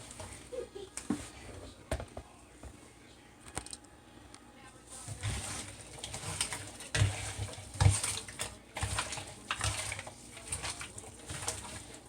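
Hands rubbing seasoning into raw chicken pieces: irregular wet squishing and handling noises, busier in the second half.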